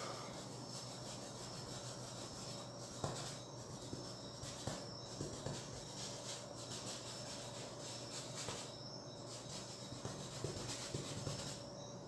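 Paintbrush rubbing and dabbing on a stretched canvas: faint soft strokes with a few light ticks, over a steady thin high chirring of crickets.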